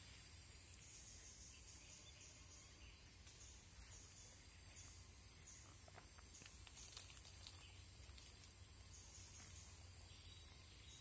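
Faint outdoor ambience of insects trilling: one steady high-pitched trill with scattered short chirps, over a low background hum.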